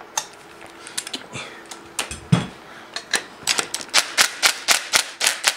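Hand ratchet wrench clicking as a loosened bolt is backed out of the supercharger on a 3800 L67 engine: a few scattered clicks and a dull knock about two seconds in, then steady clicking at about four a second from about three seconds in.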